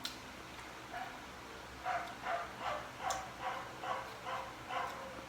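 A dog barking in a quick run of about nine short barks, roughly three a second, starting about two seconds in.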